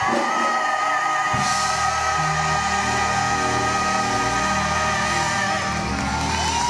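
Live gospel music: a long held note lasting about five seconds over steady accompaniment, then the pitch bends up and down near the end.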